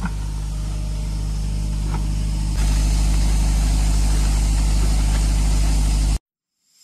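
Soda-blasting rig running: a steady engine-driven air compressor hum with the hiss of the blast air over it. It steps louder about two and a half seconds in and stops abruptly near the end.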